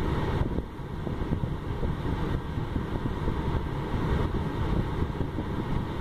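Car's cabin blower fan running at maximum: a steady rush of air blowing out of the dashboard vent, with a rough low rumble.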